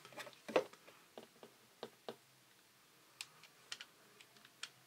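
Faint, scattered clicks and taps as a handheld drill is picked up and its bit set against the plastic lid of an ammo can, just before drilling.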